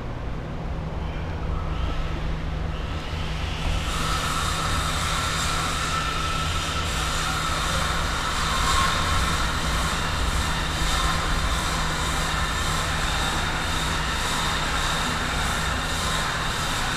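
Steady, loud drone of running machinery with a low hum throughout; a higher whine joins about four seconds in and holds.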